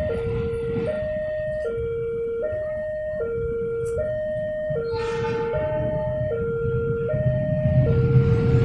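Railroad level-crossing siren sounding its two-tone alarm, alternating between a higher and a lower tone about every 0.8 s: the warning that a train is coming and the barriers are down. A low rumble underneath grows louder near the end.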